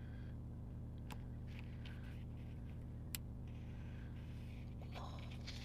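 Faint rustles and taps of sticker sheets and paper being handled over a steady low hum, with one sharp click about three seconds in.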